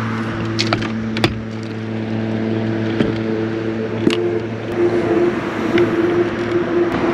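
Boat motor running at a steady pitch, with a few light clicks or knocks. The deepest part of the hum fades out about five seconds in while a higher tone carries on.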